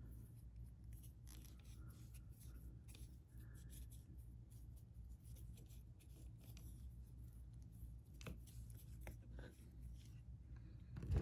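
Faint light scratching and small taps of a paintbrush working a thin wash over a sculpted action figure, with a few sharper ticks near the end, over a low steady room hum.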